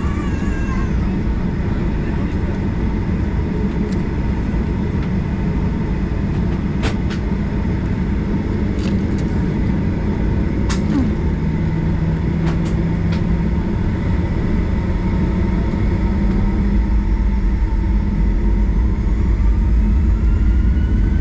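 Cabin noise of a Boeing 737-800's CFM56-7B engines running at idle, a steady low rumble with a few light clicks, as the aircraft lines up and holds on the runway. Near the end the rumble grows and a rising whine climbs as the engines spool up for takeoff.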